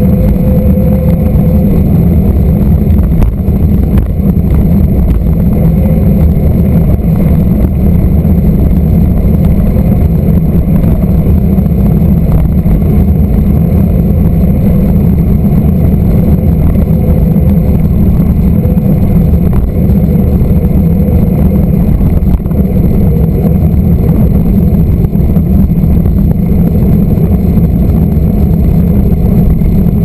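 Loud, steady wind rumble on the microphone of a camera mounted on a moving mountain bike, mixed with tyre noise on asphalt.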